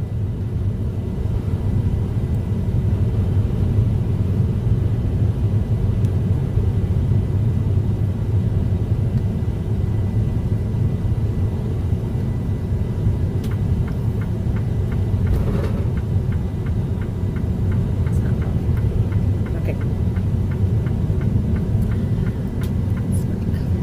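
Semi truck's diesel engine running with a steady low rumble, heard from inside the cab. Faint quick ticks come in over the second half.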